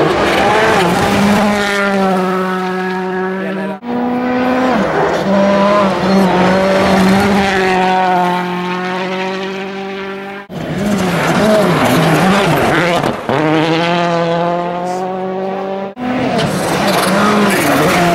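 Rally cars' engines at high revs as the cars pass on a gravel stage, the pitch wavering up and down with throttle and gear changes. The sound breaks off abruptly three times between cars. The last car is a Volkswagen Polo R WRC.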